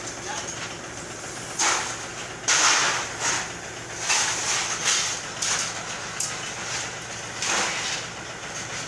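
Old corrugated iron roofing sheets clattering and scraping as they are handled and stacked, in several short loud bursts of metal noise.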